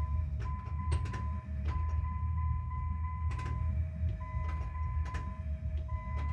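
1998 Dodge 1500's 5.9 V8 cranking on the starter with a steady low rumble, not yet catching, after a fresh set of spark plugs. Over it runs a repeating two-note chime with light ticks.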